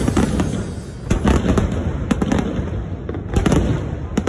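Aerial fireworks going off in a dense barrage: a rapid, irregular run of bangs and crackles over a low rumble. It thins briefly about a second in and again around three seconds in.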